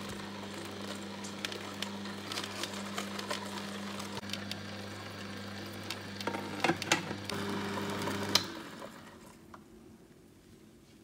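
Slow juicer motor humming steadily as its auger crushes fruit, with crackling and a few sharp snaps. The motor stops about eight and a half seconds in, leaving only faint sound.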